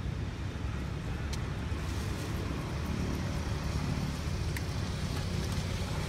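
Low, steady rumble of a motor vehicle's engine running, with two faint clicks.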